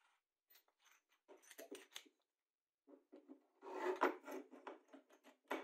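A homemade plywood hold-down clamp being handled: quick clicks and rubbing as its knob is spun, then a louder scrape as the clamp slides along the T-slot in the tabletop, and a sharp knock near the end as it is set down.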